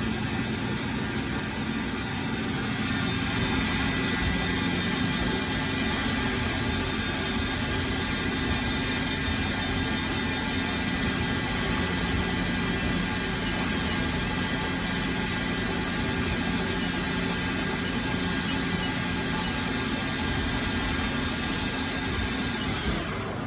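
Haas ST-20 CNC lathe running steadily: an even machine hum with several steady whining tones over a hiss. The sound drops away abruptly near the end.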